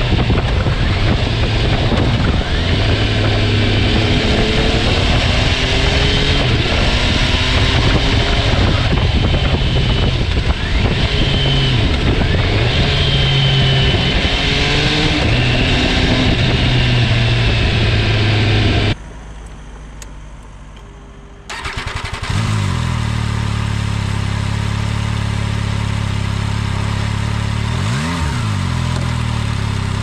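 MV Agusta Turismo Veloce Lusso's three-cylinder engine under way, revving up and down through the gears over wind noise. A little past halfway the sound drops suddenly to a quieter stretch for a couple of seconds. The engine then comes back at a steady note, with one brief rev near the end.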